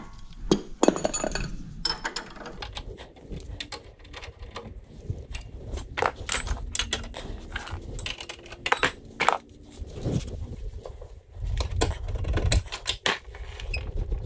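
Steel hand tools, a socket ratchet and a combination wrench, clinking and clicking against each other and the suspension in a run of sharp, irregular clicks while the lower control arm bolts are undone.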